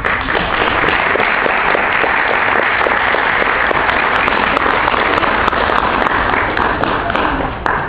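Audience applauding: many hands clapping densely together, easing off near the end.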